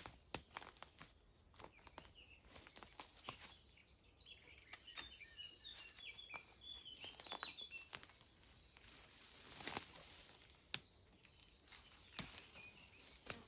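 Scattered sharp cracks and snaps of branches and twigs being broken and pulled away, with rustling; the two loudest snaps come near the end. A bird sings briefly in the middle.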